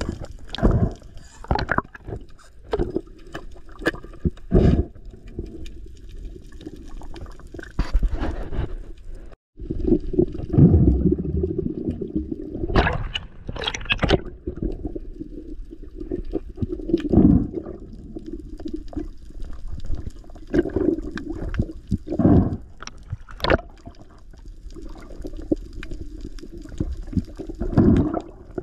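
Underwater sound picked up by a camera in its waterproof housing as a diver swims: irregular sloshing and bubbling of water moving past, with sudden louder swirls. The sound cuts out for a moment about nine seconds in.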